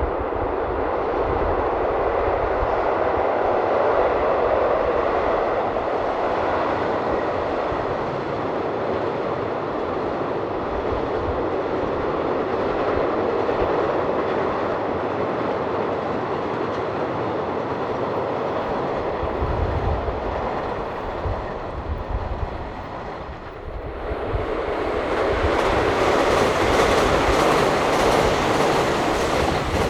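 Electric train passing, a steady, loud rush of running noise from the cars on the rails. About 24 seconds in it dips briefly, then comes back louder and brighter.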